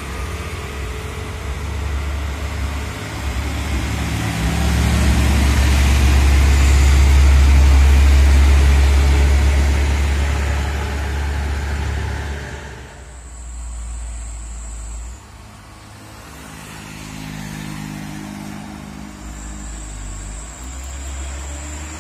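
Diesel cargo trucks labouring up a steep hill under load, the engine sound growing loud as one passes close about eight seconds in, then fading. A sudden drop about thirteen seconds in is followed by another truck engine, quieter, with a thin high whine heard twice.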